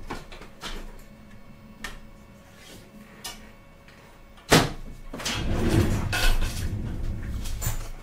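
Light clicks as a Bambu Lab 3D printer is opened and its textured PEI build plate is taken out, then a sharp knock about four and a half seconds in, followed by rustling and handling of the plate.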